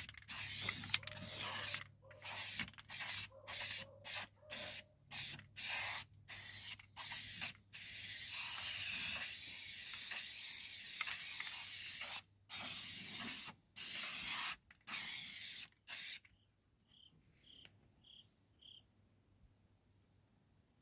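Aerosol can of rubberized black undercoating spraying in a quick run of short hissing bursts, then one longer spray of about four seconds, then a few more short bursts. The spraying stops about three-quarters of the way through.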